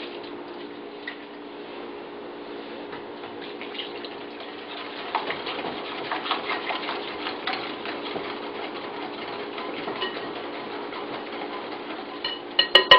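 Pudding mix and milk being stirred by hand in a bowl: a utensil scraping and lightly clinking against the bowl, over a steady low hum. Near the end the utensil knocks sharply against the bowl several times.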